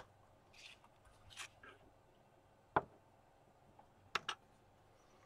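Hands handling small objects on a tabletop: magnets and a plastic-framed magnetic viewing film being picked up and set down. A few sharp clicks, one at the start, one near the middle and two close together near the end, with soft rubbing between them.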